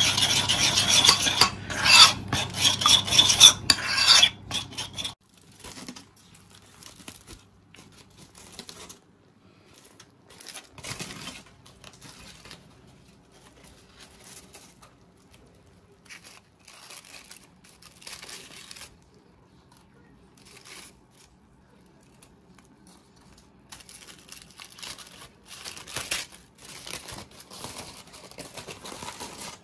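A metal spoon stirring a glaze of honey, mustard and soy sauce in a ceramic bowl: rapid clinking and scraping against the bowl for about five seconds, then it stops. After that there are only faint, scattered rustles, with aluminium foil crinkling near the end as it is opened.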